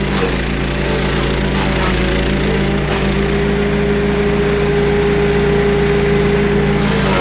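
Rock Machinery petrol stump grinder running under load, its cutter wheel grinding into a tree stump with a steady engine note and rough chipping hiss; a steady tone rises out of it from about three seconds in until near the end.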